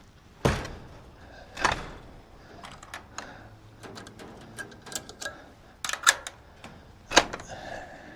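A door being handled and shut: a series of separate knocks and sharp clicks spread through several seconds, the sharpest clicks near the end.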